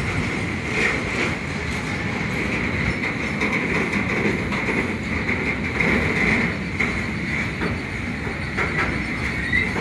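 Freight wagons of a grain train rolling past at speed: a steady rumble with a high ringing whine from the wheels, broken by irregular clacks over the rail joints.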